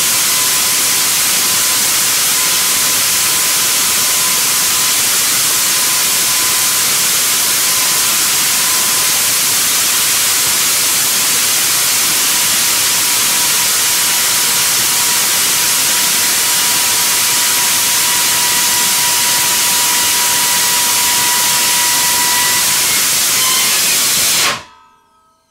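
N2O/thermoplastic hybrid rocket booster of about 10 kN thrust firing during a static hot-fire: a loud, steady hissing roar with a faint, steady whistle in it. The sound cuts off suddenly near the end.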